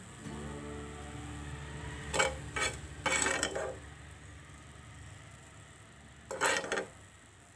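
Steel spoon clinking and scraping on a ceramic plate while spooning hot tadka onto steamed rice faras: a cluster of sharp clinks and scrapes about two to four seconds in, and another near the end.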